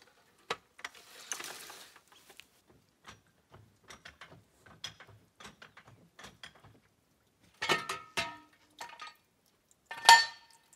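Metal clicks and clanks of a steel hydraulic trolley jack being lowered and pulled out from under a quad bike and moved: a short rushing sound about a second in, light scattered clicks, then heavier clanks near the end, the loudest about ten seconds in.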